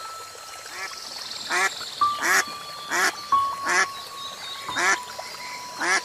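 Mallard ducks quacking: a run of about six short, nasal quacks, roughly one every three quarters of a second, starting about a second and a half in. Soft background music with held notes plays underneath.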